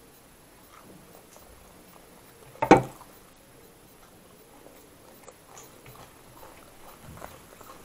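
A person chewing a mouthful of chhole and naan, with faint soft mouth sounds. About two and a half seconds in comes one short, loud thump.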